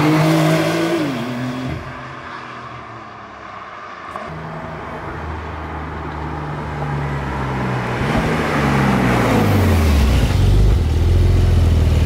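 Porsche 911 Carrera 4S (992) with its 3.0-litre flat-six driving by: the engine note rises and falls and fades away, then the car approaches, growing steadily louder, its pitch dropping as it comes close, and passes with a loud low, steady engine note.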